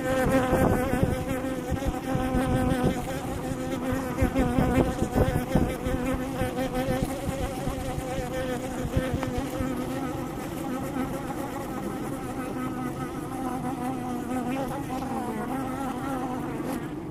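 Honey bees buzzing around a hive: a steady, slightly wavering hum of many bees. Underneath runs an uneven low rumble, with a few thumps in the first six seconds.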